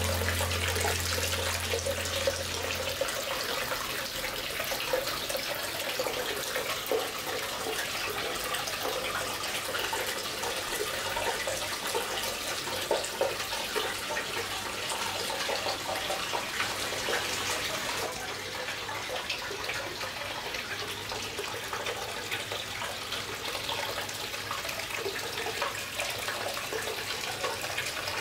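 Hot-spring water pouring steadily from a rock spout into a stone open-air bath, a continuous splashing flow.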